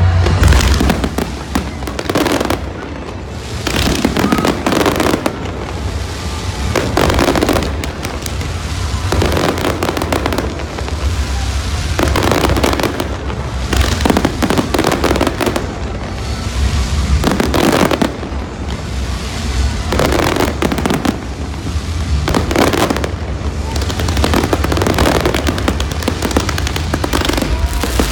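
Aerial fireworks display going off continuously: loud bursts come every two or three seconds, with crackling between them, over a constant low rumble.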